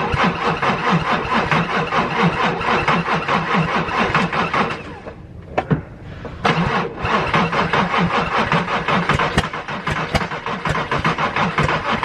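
Car starter cranking the engine in two long attempts of about five and six seconds, turning it over with an even rhythm, and the engine does not catch either time. The owner takes the starter to be at fault.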